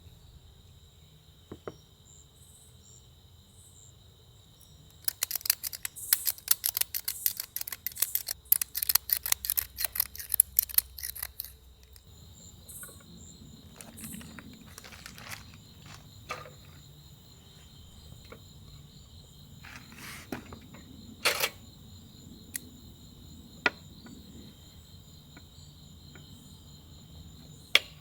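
Crickets chirp steadily in the background. About five seconds in, a quick run of sharp clicks lasts some six seconds, followed by scattered single clicks and knocks.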